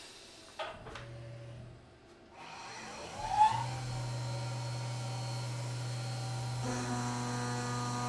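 CNC milling machine with a 4th-axis rotary fixture: the spindle whirs up in a rising pitch about three seconds in, then runs with a steady hum. From about seven seconds a cluster of steady whining tones joins it as the end mill cuts into the timascus handle block under flood coolant.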